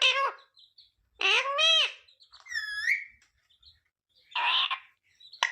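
Ringneck parakeet giving about four separate high-pitched calls with gaps between them. Some calls sweep down and back up in pitch.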